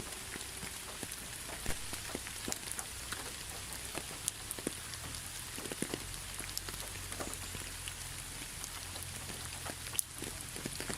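Steady rain falling, an even hiss with scattered sharp drips and ticks of individual drops hitting a surface, over a low rumble.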